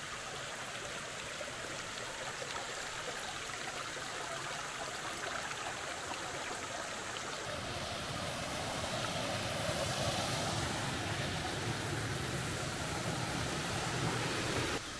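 Rocky stream rushing over stones in a steady wash of water noise that grows a little louder about halfway through.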